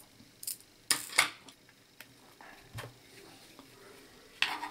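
Several sharp clicks and clacks of a screwdriver and the plastic back cover of a pocket multimeter being handled and set down on a wooden desk as the case is opened; the loudest two come just after a second in.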